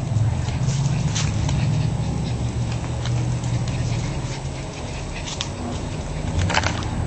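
Small shih tzu dogs playing, with a few short sharp noises over a steady low hum.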